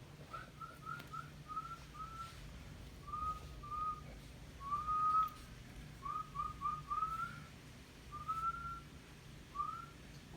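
A person whistling a string of short, upward-sliding notes, some in quick runs of three or four and a longer one about halfway through. A low steady hum sits underneath.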